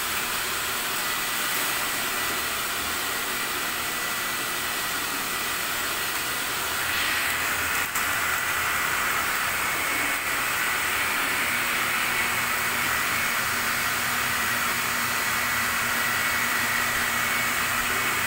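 Steady whirring hiss of running machinery with a faint high whine, getting a little louder about seven seconds in.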